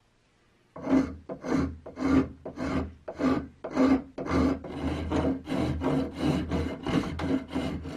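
Hand rasp filing the epoxy-repaired wooden handle of an antique hand saw, in quick back-and-forth strokes about two a second, starting about a second in.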